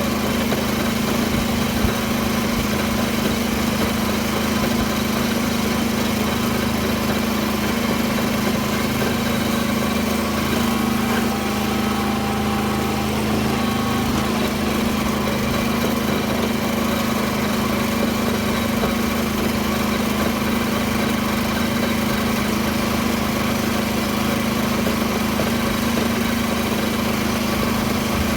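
Small farm tractor's engine running at a steady, unchanging drone while tilling a field with a rotary tiller.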